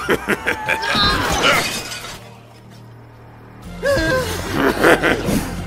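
Cartoon soundtrack: a glass-like shattering crash and sharp hits over tense background music, with strained vocal gasps and cries from the struggling characters. The music drops out briefly about halfway and comes back with a low drone.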